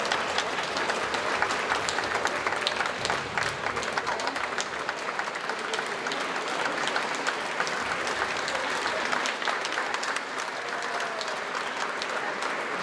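Theatre audience applauding, many hands clapping in a dense, steady stream.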